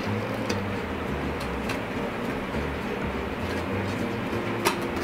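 Background music with a bass line that steps from note to note, with a few sharp clicks, the loudest near the end.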